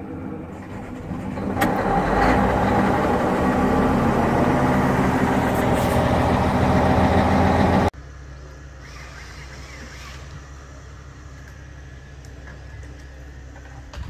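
An engine starts, the sound rising sharply about a second and a half in, then runs loud and steady before cutting off abruptly about eight seconds in. A much quieter, steady low hum follows.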